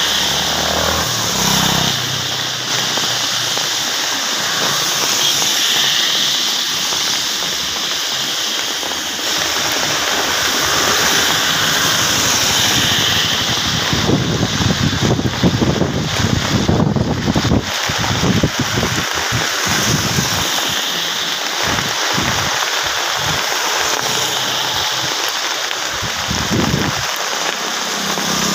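Steady hiss of heavy monsoon rain falling on a waterlogged road, with vehicles swishing past on the wet tarmac; a car's engine and tyres pass at the start. In the middle comes a stretch of irregular low rumbling.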